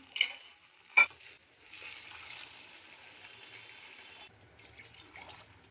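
Washed polao rice sizzling as it fries in oil and ghee, stirred with a silicone spatula. Two sharp clicks come in the first second; the steady sizzle then cuts off abruptly about four seconds in, followed by a few short scraping strokes.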